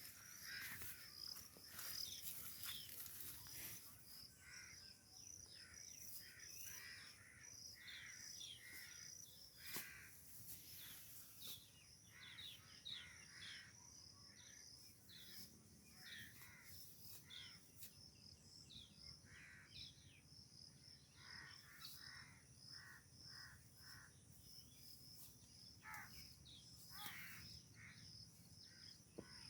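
Faint outdoor ambience: birds calling on and off throughout, over a steady, rapid high-pitched chirping of insects.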